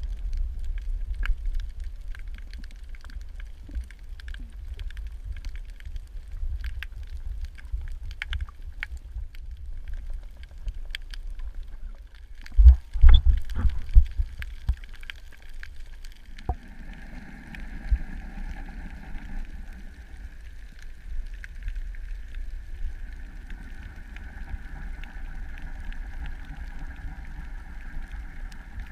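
Underwater sound: a constant low rumble with scattered sharp crackling clicks, a loud burst of noise about thirteen seconds in, then a steady hum with several tones from about sixteen seconds on.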